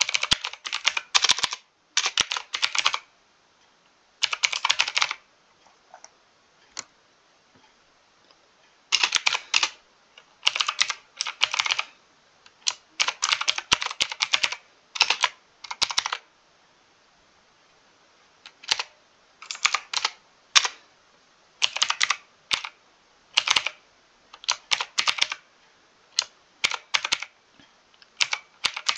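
Typing on a mechanical keyboard: quick runs of crisp keystrokes, broken by pauses of a few seconds, the longest about five seconds in and again about sixteen seconds in.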